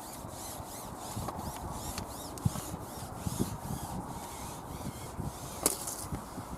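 Strong wind buffeting the microphone, with a steady rough rush and irregular low thumps, and one sharp click about five and a half seconds in.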